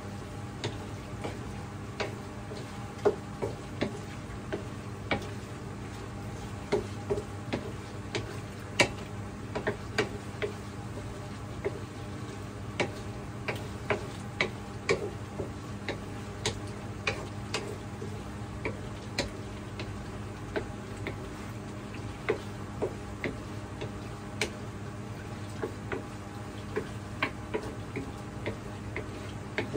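Pork belly frying in a pan while being stirred with a wooden spatula: irregular sharp clicks and pops, a few a second at most, over a steady low hum.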